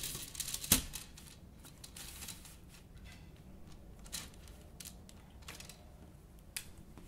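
A metal Lazy Susan bearing with wooden blocks on it being set down and shifted on a sheet of craft foam on a wooden table: soft rustling and scraping, with a sharp knock about a second in and a few light clicks later.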